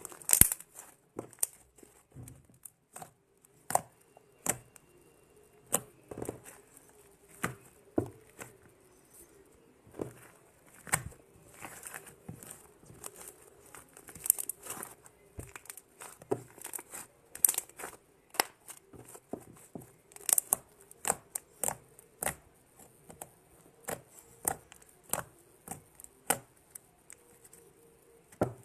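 Fluffy slime made from glue, borax and shaving cream being worked by hand, giving irregular sharp pops, clicks and crackles, several a second.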